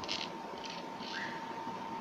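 Three brief scratchy rustles in the first second or so, from a component's wire leads being handled and pushed into a solderless breadboard, over a steady background hiss with a faint constant tone.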